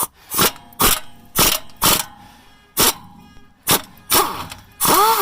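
An 18 mm wrench working a tight shock-absorber bolt on a 2005 Ford F-250 Super Duty: a row of sharp clicks, about two a second with a few longer gaps. Near the end comes a short sound falling in pitch.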